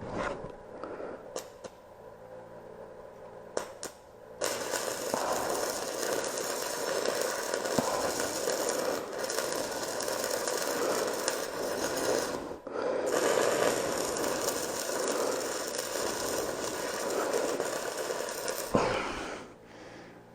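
Stick-welding arc on a 7018 electrode crackling steadily. It catches about four seconds in after a few clicks as the rod is struck, drops out briefly near the middle, and stops near the end.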